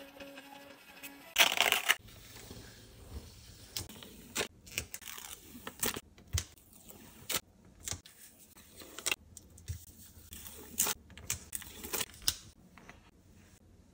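Mini thermal label printer's motor running steadily for about a second, then a loud rip as the printed label is torn off across the cutter edge. After that come scattered crisp crackles and snaps of sticker paper being peeled from its backing and handled.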